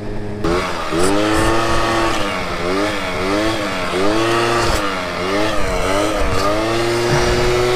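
Stock 50 cc scooter engine with its original exhaust, revved up and let off about seven times in quick succession, then held at a steady high pitch near the end, with wind rush over it.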